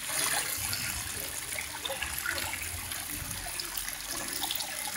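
Small stream of water trickling and babbling steadily, with many small splashes and gurgles.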